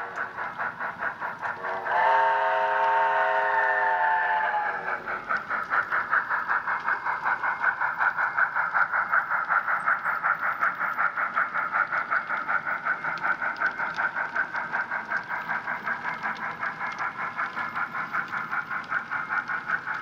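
Sound-equipped Sn3 model steam locomotive blowing its chime whistle: one blast ends just after the start and a longer one sounds from about two seconds in, sagging in pitch as it cuts off. Then comes steady rhythmic exhaust chuffing, about four chuffs a second, as the train rolls.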